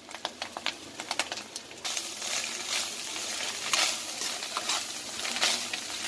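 Shredded cabbage and vegetables being stir-fried in a kadai on high flame: a spatula scrapes and tosses them against the pan over the frying sizzle. Light clicks of the utensil come first, and the sizzle gets suddenly louder about two seconds in.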